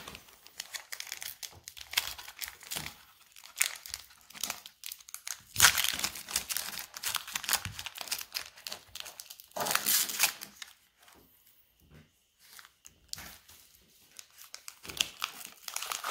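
Foil wrapper of a Pokémon Vivid Voltage booster pack crinkling as it is handled and torn open by hand, in irregular bursts that are loudest about six and ten seconds in, with a quieter stretch before more crinkling near the end.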